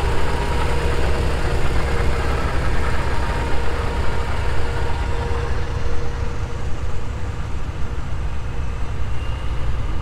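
Vintage International Harvester tractor engine running as the tractor drives slowly past. Its steady engine tone fades after about five seconds as it moves off, over a continuous low rumble.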